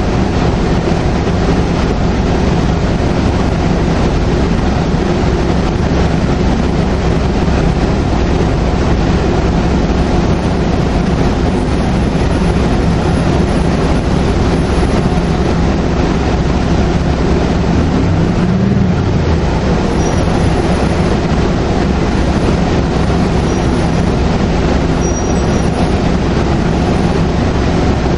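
2002 NABI 40LFW transit bus under way, its Detroit Diesel Series 50 diesel running steadily with loud road and body noise. A faint high turbocharger whistle comes and goes through the second half.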